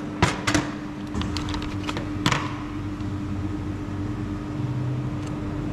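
Steady hum of running lab machinery in a spot-welding lab, with a few sharp clicks near the start and one more about two seconds in.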